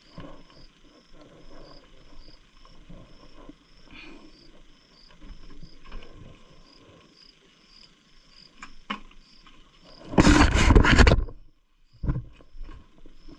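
Crickets chirping in a steady, quick repeating pulse, over soft handling and rustling sounds. About ten seconds in, a loud burst of rustling noise lasts about a second.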